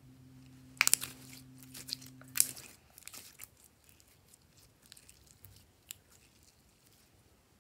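Pink glitter glossy slime being stretched and folded by hand: sticky crackling and popping clicks, loudest in two clusters about one and two and a half seconds in, then thinning to scattered small clicks. A faint low hum stops about two and a half seconds in.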